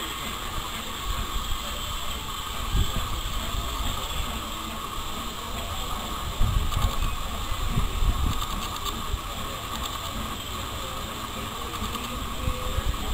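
Train of open passenger wagons and a brake van rolling slowly past on the rails, wheels rumbling, with a run of clanks and knocks about halfway through.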